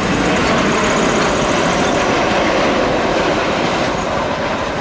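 Boeing 737-800's twin CFM56 jet engines running loud and steady as the airliner passes low along the runway: a dense rushing roar that cuts off abruptly at the end.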